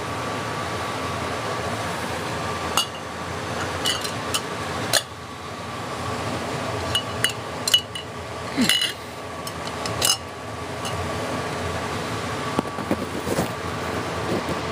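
Glass lamp chimney clinking against the metal burner of a kerosene lamp as it is handled and seated, a dozen or so light, irregular clinks with a short ring, over a steady background hum.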